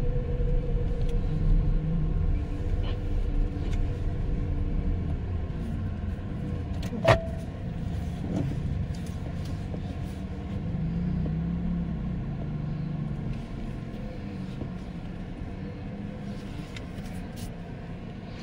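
Tata Curvv EV on the move: a steady low rumble of road and tyre noise with no engine note, heard from inside the cabin. One sharp click sounds about seven seconds in.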